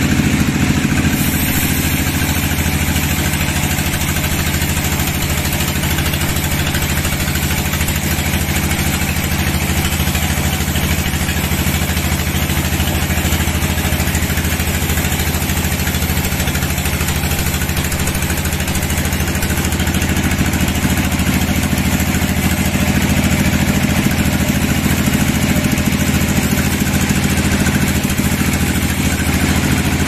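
Band sawmill running, its vertical blade sawing lengthwise through a log on the carriage: a steady machine drone with a constant hiss of cutting.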